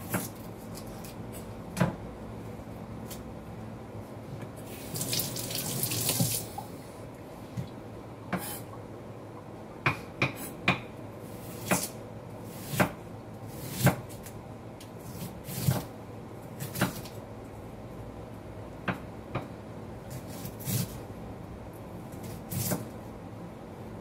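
Kitchen knife chopping a red onion on a wooden cutting board: single sharp knocks, unevenly spaced and often about a second apart. A brief hiss of noise comes about five seconds in.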